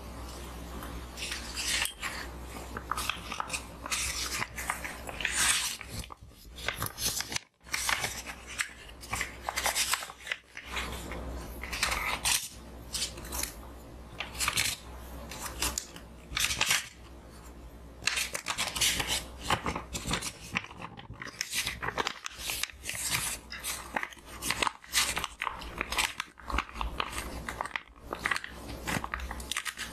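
Sheets of paper being handled, crinkled and folded, in an irregular run of crisp crackling rustles with a few short pauses.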